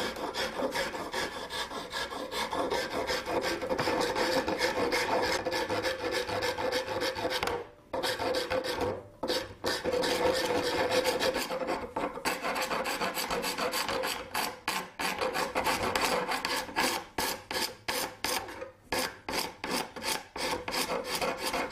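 Hand file stroked back and forth over the tip of a yew recurve bow limb, rounding and narrowing it into an upturned nock. Steady scraping strokes with brief pauses, turning into short, quick separate strokes in the last few seconds.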